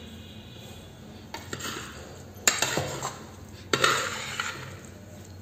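Metal spoon stirring cooked rice in a pressure cooker pot, scraping and clanking against the metal sides. Quiet for the first second or so, then a few sharp knocks, about two and a half and nearly four seconds in.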